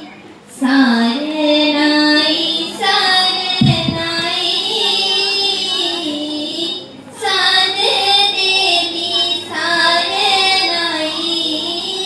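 Young children singing a song together in chorus, with a woman's voice singing along, in phrases with short breaks about half a second in and around seven seconds in. A low thump sounds a little under four seconds in.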